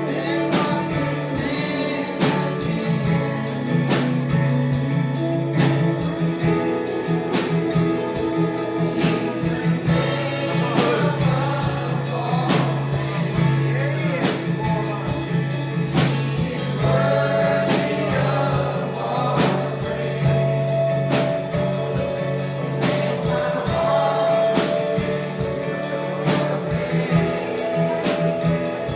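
Gospel worship music: singing over a band with guitar and drums and a steady beat.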